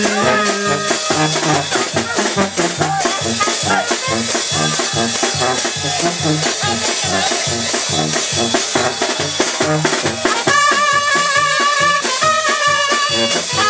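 Tamborazo banda playing live without singing. A sousaphone plays the bass line and the tambora bass drum and cymbal keep a steady beat under trumpets and other horns. Near the end the horns hold long notes.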